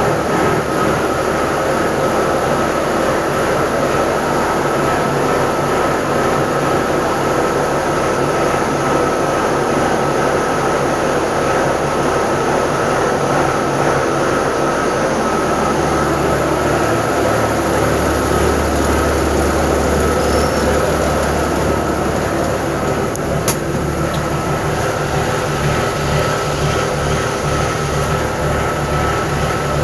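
1956 Peterbilt 351's diesel engine idling with a lope after a cold start: a loud, uneven low pulsing rumble with a steady high whine over it. The low rumble grows heavier about halfway through.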